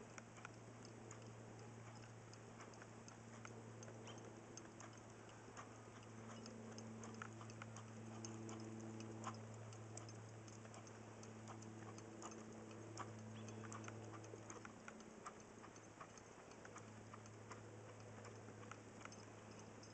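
Near silence: a faint steady low hum, broken briefly about three-quarters of the way through, with scattered faint ticks.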